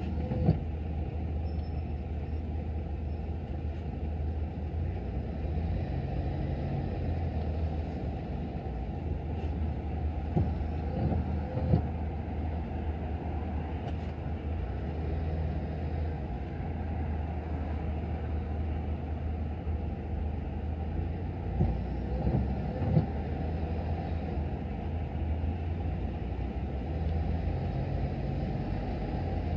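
Car driving in slow city traffic: a steady low rumble of engine and road noise, with a few brief knocks around the middle and again later.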